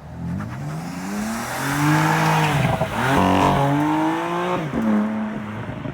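Stage 1 tuned BMW M4's twin-turbo straight-six accelerating hard, its pitch rising through the revs. The pitch breaks at a gear change about three seconds in, climbs again, then drops and fades as the throttle is lifted near the end.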